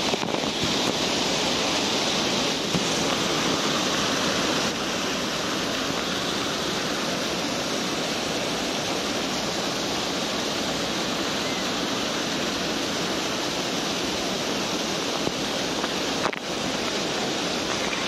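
Waterfall water pouring down close to the microphone: a steady, loud rush that eases a little after about five seconds.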